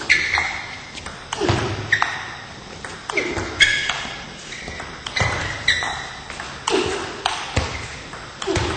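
Table tennis ball clicking off the bats and bouncing on the table in a long rally, a sharp hit every half second to a second, with a short echo from a large hall.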